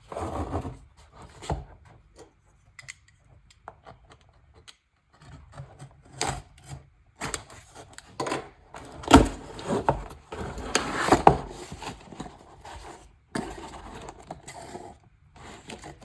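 Packaging being handled and opened: irregular rubbing, scraping and rustling with scattered sharp knocks, the loudest about nine and eleven seconds in.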